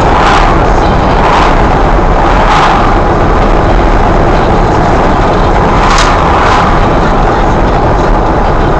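Steady road and wind noise from a vehicle driving at highway speed, with several brief whooshes as oncoming cars pass, the clearest pair near the end.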